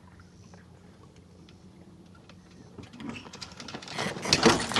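A sailboat going through a tack: the sail and its lines and hardware flap and rattle in a quick run of clicks that starts about three seconds in and grows loud near the end.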